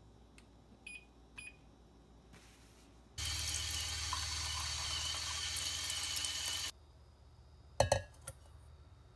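Two short electronic beeps from an oven's touch-control panel. Then a kitchen faucet runs water into a plastic measuring cup for about three and a half seconds and stops suddenly. Near the end comes a short clunk as a metal bowl of apples is set on a digital kitchen scale.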